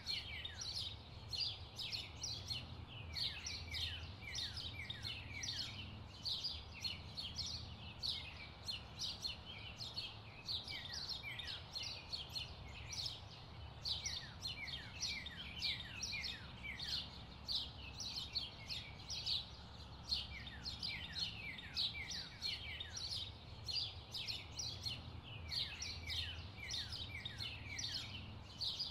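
Small birds chirping continuously: many short, quick downward chirps, several a second, over a faint low hum.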